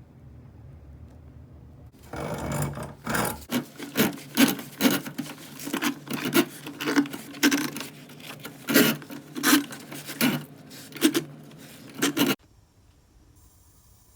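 Rasping back-and-forth strokes of a hand tool, such as a saw or file working a pipe, at just under two strokes a second. They start about two seconds in and cut off suddenly near the end.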